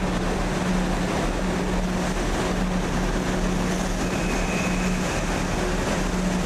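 Multiple-unit passenger train moving slowly along an underground station platform: a steady hum that comes and goes over a dense rush of wheel and running noise.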